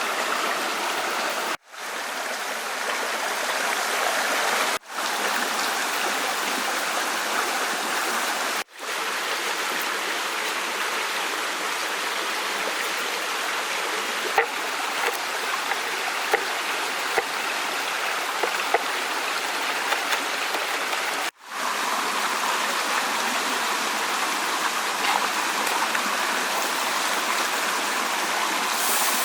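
Steady rushing of a flowing stream, cut off briefly by a few short gaps.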